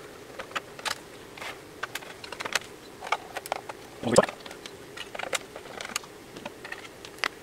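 Scattered small clicks and taps of a screwdriver and hands working in an open bench instrument's metal case and circuit board, with one louder knock about four seconds in.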